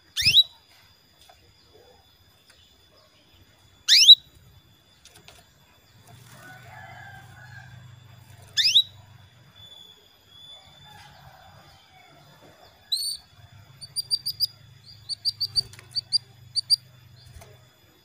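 Female canary calling to males: three loud, fast upward-sweeping calls a few seconds apart, then from about 13 s a quick run of short chirps.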